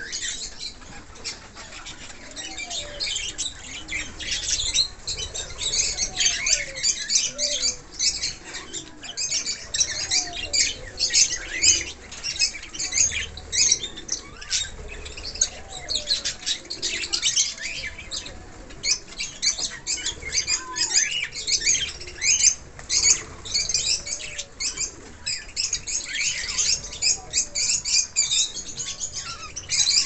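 A flock of budgerigars chattering and chirping in quick, overlapping bursts, on and on without a break.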